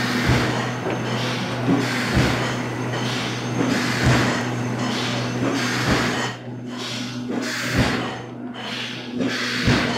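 Running machinery of a plastic sheet extrusion line: a loud, even mechanical noise over a constant low hum, with a few dull thumps. The noise dips briefly a couple of times in the second half.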